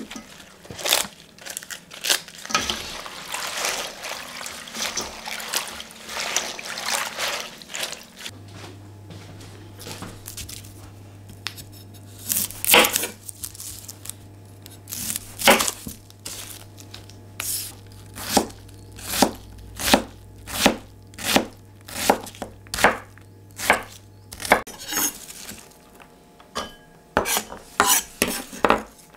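Cavolo nero leaves swished and rubbed by hand in a steel bowl of water. Then a kitchen knife cutting an onion on a wooden board: a couple of single cuts, then a steady run of chops a little more than one a second, and a few quicker chops near the end.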